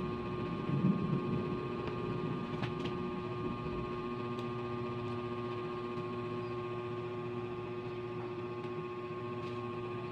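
A steady electrical hum, with a few faint clicks from chewing food.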